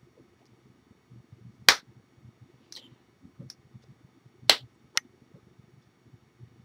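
Sharp smacks of hands striking together during signing: a loud one about a second and a half in, another about four and a half seconds in, and a lighter one just after it, with a few faint clicks between.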